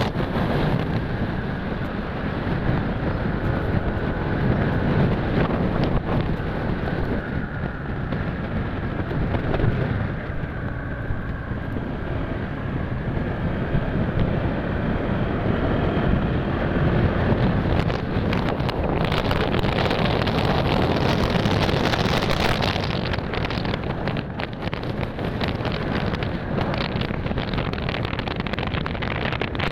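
Wind rushing and buffeting over the microphone of a moving motorcycle, with the engine running steadily beneath it.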